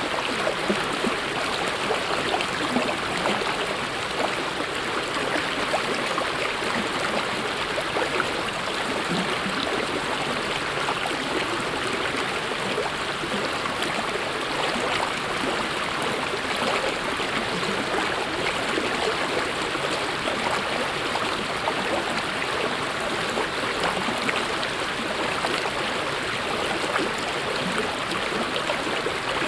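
Mountain stream running steadily over rocks, a dense, even rush of water with constant small splashes and gurgles.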